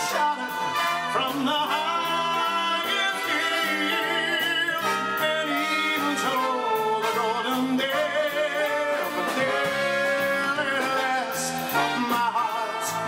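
A man singing into a microphone with a live band playing behind him.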